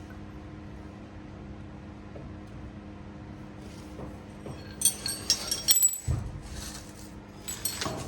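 Metal clinking and jangling, like hand tools or brake hardware being handled, in a quick cluster about five seconds in, followed by a dull thump and a few more clicks near the end, over a steady low hum.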